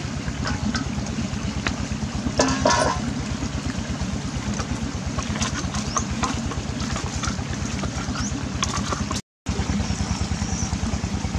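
A small engine running steadily, a low throb with a fast, even pulse; it cuts out for a moment near the end.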